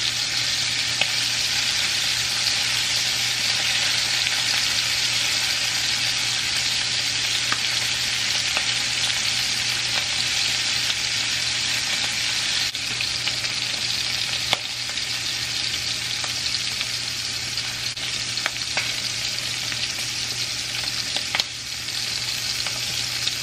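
Shrimp searing in hot oil in a frying pan: a steady, loud sizzle. A few light clicks of tongs against the pan are heard scattered through it as the shrimp are turned.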